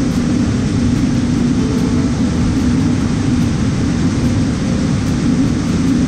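John Deere combine running steadily under load while unloading shelled corn through its unloading auger: an even, low machinery drone.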